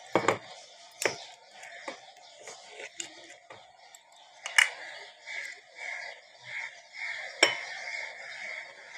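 A few sharp clinks and knocks of a glass oil bottle being handled and set against a glass bowl. From about halfway through, birds chirp repeatedly in the background, about twice a second.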